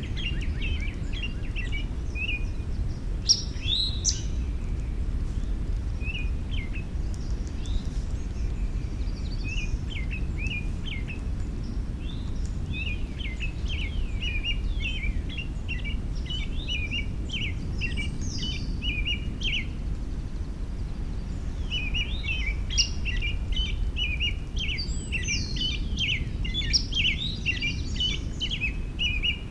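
Wild songbirds chirping and singing in short, quick runs of high notes, busiest in the second half. A steady low rumble of background noise runs underneath.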